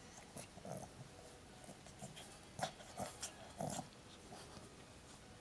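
Small dog making several short, soft vocal sounds close to the microphone, mixed with faint rustling.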